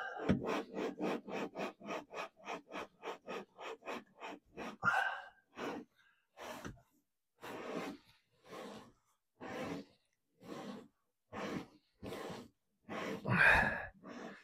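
Gritty rasping of a Blakes bronze seacock's tapered cone being turned back and forth in its body with valve grinding paste, lapping the cone into its seat to grind out scoring and pitting. The strokes come quickly at first, about four a second, then slow to about one a second, with a louder stroke near the end.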